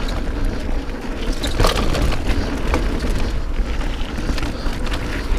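Mountain bike riding fast along a dirt singletrack: a steady low rumble of wind and tyres on the trail, with scattered clicks and knocks from the bike rattling over the ground.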